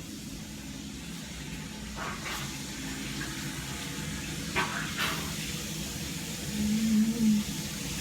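Water running steadily in a bathroom, with a few light knocks about two seconds and five seconds in, and a short low pitched sound near the end.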